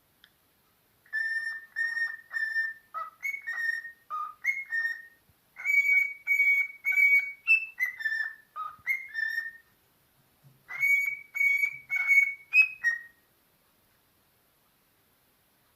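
A parrot whistling a melody: three phrases of clear, steady whistled notes that step up and down in pitch, with short pauses between the phrases.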